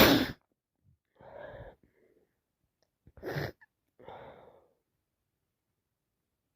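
A woman sneezing with a head cold that has turned into sinusitis: the tail of one loud sneeze at the start, a wheezy breath, a second sneeze about three seconds in, then another breath.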